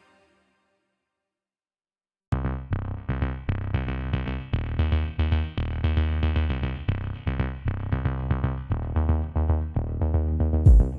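Electronic background music with a drum-machine beat and synthesizer, starting abruptly about two seconds in after a stretch of silence.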